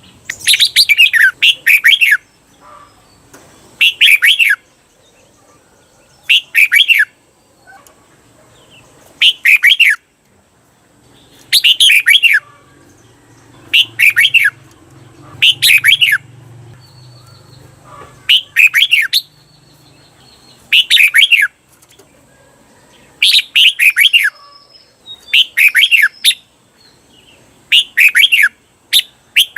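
Red-whiskered bulbul singing: a series of short whistled song phrases repeated about every two seconds, some given twice in quick succession as the doubled phrase that bulbul keepers train for.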